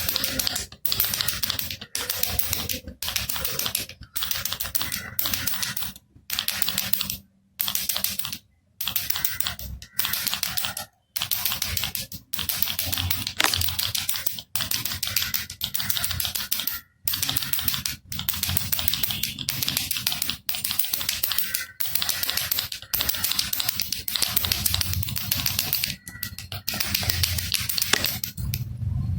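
Baby rattle shaken over and over in short bouts, the pieces inside clicking rapidly, with brief pauses between shakes.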